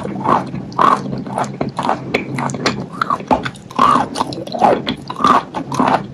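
Close-up chewing and crunching of wet chalk in the mouth: crackly crunches about once or twice a second, with many small wet mouth clicks between them.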